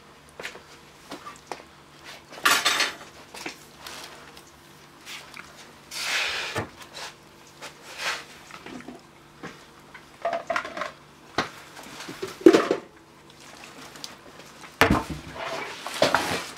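Stainless steel dog bowls clinking and clattering in their metal stand: irregular metallic clicks with a few louder clatters, one leaving a brief ring.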